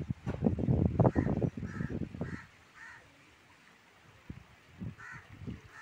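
A crow cawing repeatedly, about four harsh caws in the first three seconds and another one or two near the end. Loud, low gusty buffeting fills the first half.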